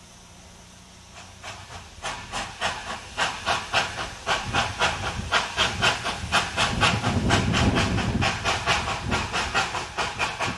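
1941 ALCo 2-8-2 Mikado steam locomotive climbing a grade. Its exhaust chuffs about three times a second, starting about a second and a half in and growing louder as it nears, over a low rumble.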